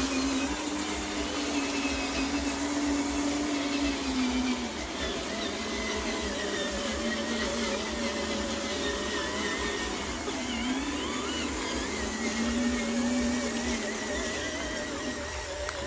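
Small electric motor whining steadily, its pitch wavering, dipping and coming back up as its speed changes, typical of a 12 V RC truck motor.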